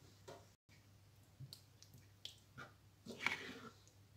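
Faint clicks and scrapes of a spatula stirring a thin potato-tomato curry in a nonstick pan, a little louder about three seconds in.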